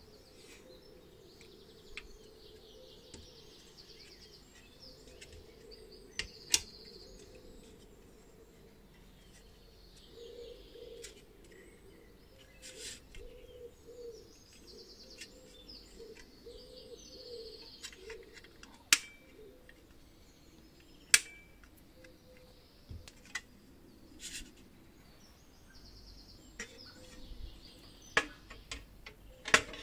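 Pressed-metal parts of a tin toy cash register being handled, giving a few sharp clicks and taps. Birds sing faintly in the background.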